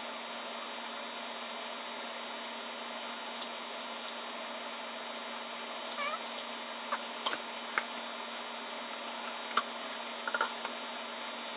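Scattered light clicks and knocks of plastic electric-fan parts being handled and fitted together, over a steady background hum. A few faint short squeaks come about six seconds in.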